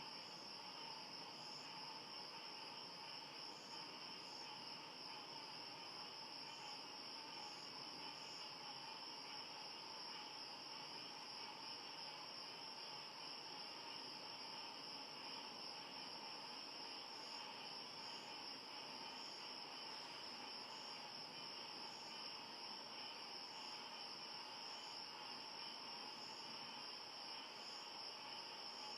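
Tropical forest insects at night in a continuous chorus: a steady high-pitched trill over a lower steady hum, with short higher chirps dotted through it at irregular intervals.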